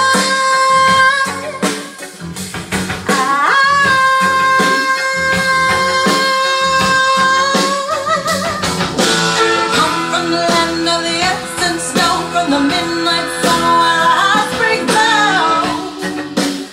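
Recorded blues-rock music with singing and electric guitar, played from a vinyl LP over Kyron Audio loudspeakers and heard in the room. A long held note wavers a few seconds in, and then busier singing and guitar follow.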